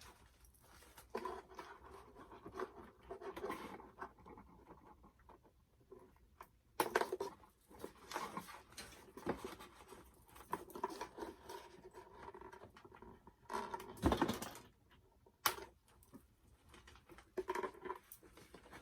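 Handling noises of unpacking a toy set: irregular rustling, scratching and tearing of packaging, with a louder knock about 14 seconds in and a sharp click soon after.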